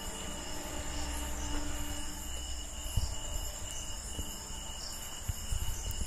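Night crickets keep up a steady, unbroken high-pitched chirring. Under it runs a low rumble, with a few soft thumps from a handheld camera being carried while walking.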